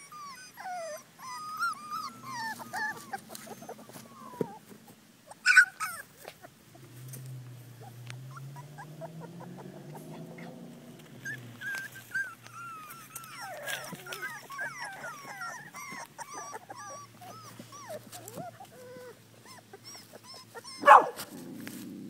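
Brittany puppies whining and whimpering in short, high, wavering cries, with two sudden louder sounds, one about five seconds in and one near the end.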